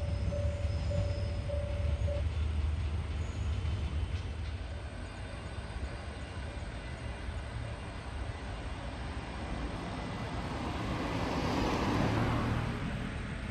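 Freight yard with trains running: a steady low rumble, a short repeating tone about twice a second that stops about two seconds in, and a rushing noise that swells and fades near the end as something passes close.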